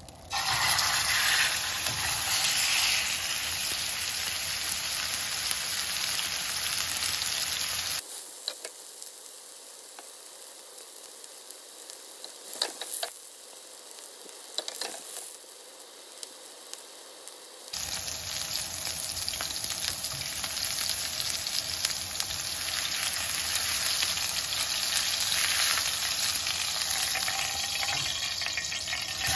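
Marinated pork loin searing in hot grapeseed oil in a wide frying pan: a loud, steady sizzle that starts abruptly as the meat goes into the pan. For several seconds in the middle the sizzle drops to a faint hiss with a few small pops, then comes back loud.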